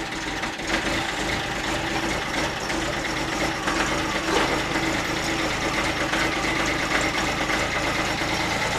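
Kubota diesel tractor engine running steadily at idle just after a cold start at about 16 degrees, having caught after another try on the glow plug.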